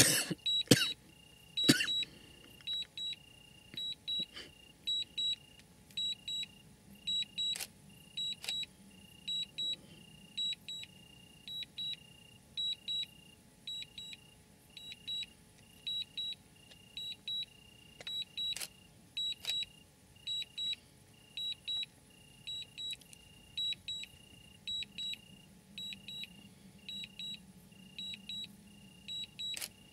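Night insects chirping in a steady rhythm, short high-pitched chirps about once a second, with a few sharp clicks, the loudest near the start.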